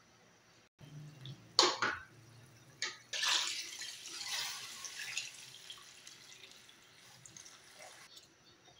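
Water being poured into a stainless steel pot of pork, splashing in a stream from about three seconds in and tapering off near the end. Two sharp knocks come first.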